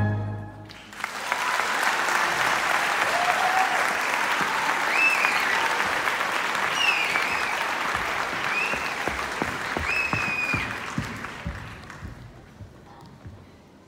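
The orchestral music ends on its last chord, then an audience applauds with a few high-pitched cheers. The applause fades out near the end.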